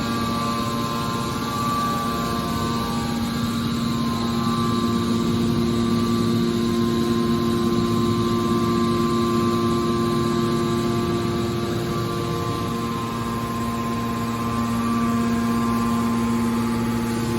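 Hydraulic baler's power unit, an electric motor and pump, running with a steady hum and whine.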